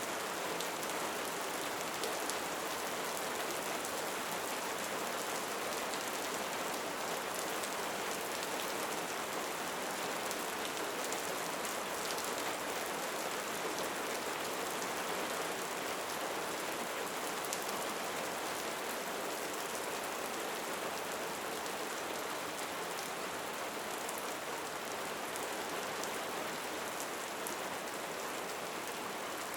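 Steady rainfall: an even hiss with faint scattered drop ticks.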